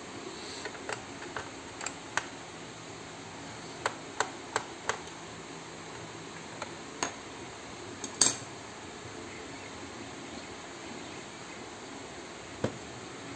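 Irregular sharp clicks and knocks of hard plastic parts of a Nerf Stryfe blaster being handled and pried apart, in small clusters, the loudest about eight seconds in, over a steady background hiss.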